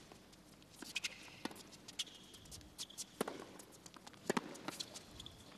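Tennis rally on a hard court: sharp racket-on-ball strikes about a second apart, with short high shoe squeaks between them as the players move.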